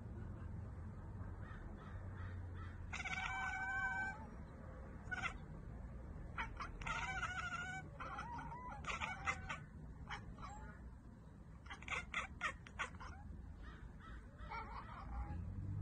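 Crow cawing: a run of harsh calls at uneven intervals, some short, one about a second long.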